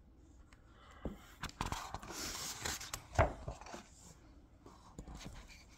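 Handling noises: a rustle and a scatter of soft clicks and knocks, the loudest knock a little after three seconds in.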